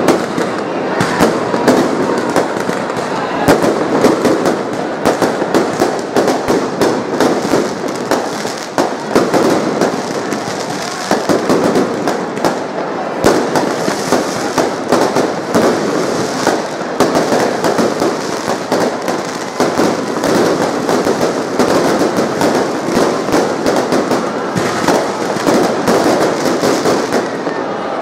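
Fireworks going off continuously, with many bangs and crackles in quick succession from aerial shells and rockets bursting.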